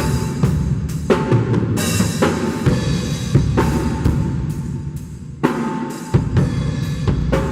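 Acoustic drum kit played in a steady groove: kick drum, snare hits and cymbal crashes. The kit has just been soundchecked tom by tom and is playing through the church PA system.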